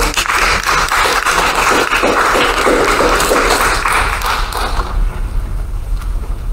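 Congregation applauding, a dense patter of many hands clapping that dies away about five seconds in.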